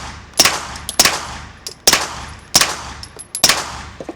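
Five suppressed 9mm shots from a Springfield Armory Kuna fired through a Silencer Co. Osprey 9 suppressor, coming in quick succession less than a second apart, each a sharp crack with a short tail. Fainter clicks sound between the shots.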